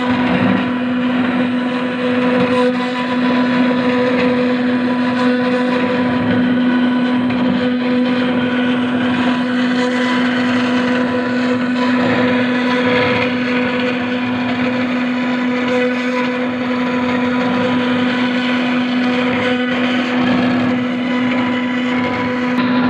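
CNC router spindle running steadily while cutting granite: a constant pitched whine over an even, gritty hiss.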